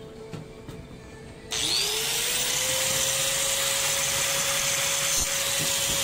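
An electric power tool's motor switched on about a second and a half in, spinning up with a rising whine and then running steadily at full speed.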